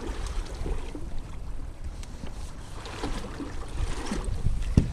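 Water splashing and lapping against a sailing kayak's hull as it cuts through small waves, with wind buffeting the microphone. A single knock near the end.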